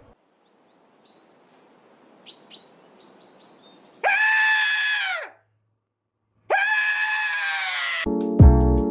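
Faint background hiss with a few small chirps, then two long, loud, high screams, each about a second long and dropping in pitch as it ends, with a short silence between them. Near the end, music with a heavy beat cuts in.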